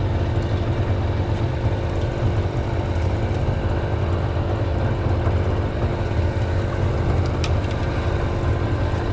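A steady, unbroken low engine hum with a constant pitch.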